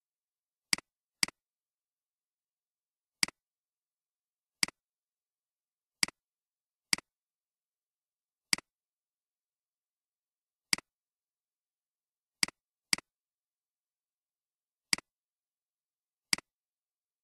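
Computer mouse button clicks: about a dozen short, sharp clicks at uneven intervals, a few in quick pairs half a second apart, with dead silence between.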